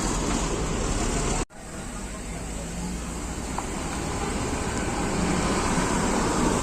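Steady rumble and hiss of bus engines and road traffic. About one and a half seconds in the sound cuts out abruptly for a moment, then comes back and slowly grows louder.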